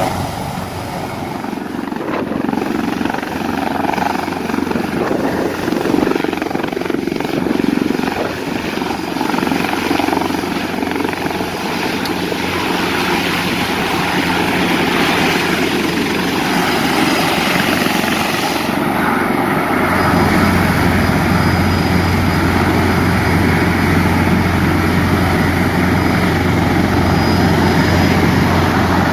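Helicopter rotor and turbine noise: an EC725 Caracal hovering low, then a grey naval helicopter on the ground with its main rotor turning. The sound steps up in level with a stronger low hum about two-thirds of the way through.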